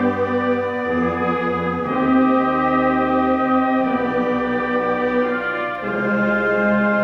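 Band playing a slow funeral chorale: full sustained chords, changing every second or two.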